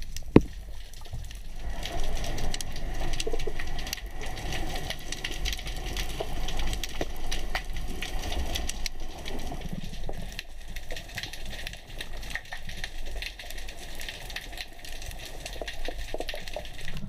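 Underwater sound picked up through an action camera's waterproof housing: a low rumble of moving water with a steady scatter of small sharp clicks and crackles, and one louder click about half a second in.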